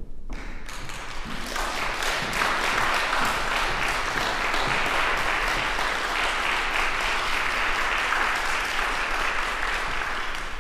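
Audience applauding in a concert hall, building up over the first second or two, holding steady, then dying away near the end.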